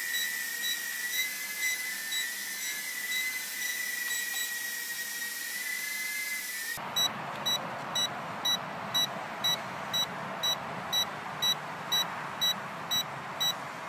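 Furibee H801 mini quadcopter's motors whining steadily, wavering a little in pitch as it hovers. Its short high headless-mode beep repeats about twice a second, the sign that headless mode is on. About seven seconds in the whine stops, and the beeping goes on louder over a steady hiss.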